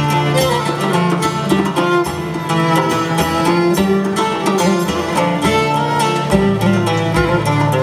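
Live folk instrumental music: a violin playing the melody with plucked lute-family instruments strumming and picking alongside, over a sustained low note that drops lower about six seconds in.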